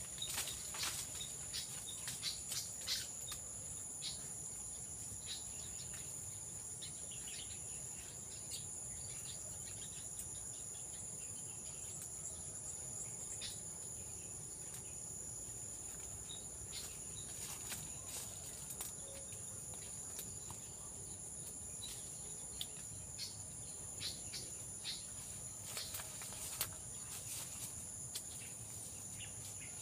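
A steady, high-pitched chorus of insects holding two constant tones, with faint scattered clicks and rustles.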